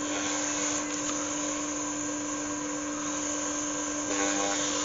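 Wood lathe (Galaxy DVR) running with a steady motor hum and whine while a cloth is held against a spinning oak lid, buffing in sanding sealer. The sound gets slightly louder about four seconds in.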